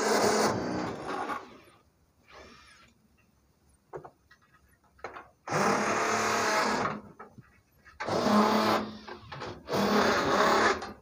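Cordless drill-driver running in short bursts, backing screws out of a wooden shipping crate: four runs of about a second each over a steady motor hum, with small clicks and knocks between them.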